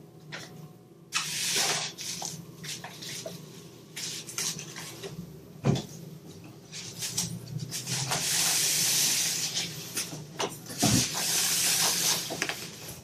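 Rustling and handling noise in irregular bursts, with scattered clicks and knocks, as things are moved about by hand.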